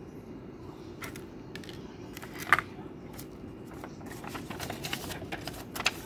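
Handling noise from unboxing: scattered light clicks and rustles as fingers handle a small plastic USB dongle and then a paper instruction leaflet. One sharp click comes about two and a half seconds in, and a quick run of paper rustles and clicks near the end, over a steady low background hum.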